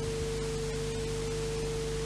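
Steady hiss with a constant hum, one fixed tone a little below 500 Hz over weaker lower ones, and no other sound: the background noise of an old videotape soundtrack.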